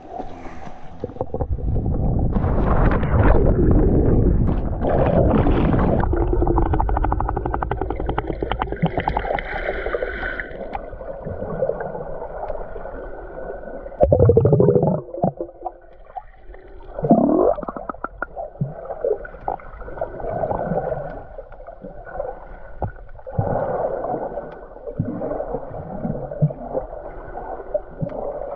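Loud rushing noise for the first ten seconds, then the sound turns muffled as the GoPro is underwater: water gurgling and sloshing against the waterproof housing, with a few short sweeping whooshes around the middle.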